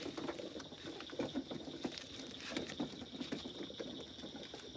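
Child's wagon rolling over gravel and grass, its wheels crunching and rattling in an irregular patter, with a faint steady high tone behind.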